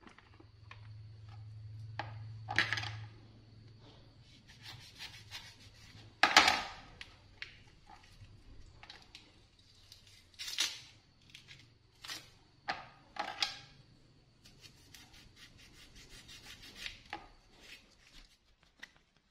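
Hands peeling a pomelo and handling plastic food containers: scattered rustles, tearing of the thick peel and light clicks and taps, the loudest about six seconds in.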